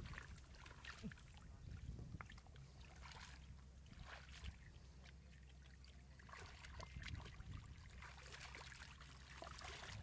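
Faint, scattered wet splashes and squelches of catfish wriggling in a shallow muddy puddle and hands working through the mud.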